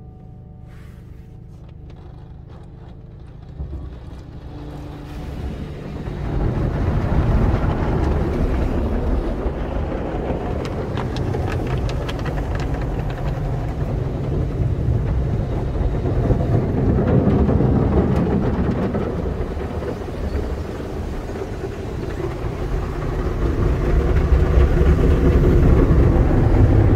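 AUTEC AES-260 in-bay automatic car wash at work, heard from inside the car: spinning cloth brushes and water spray scrubbing over the body and windows. A low hum at first, then the washing noise swells about five seconds in and stays loud.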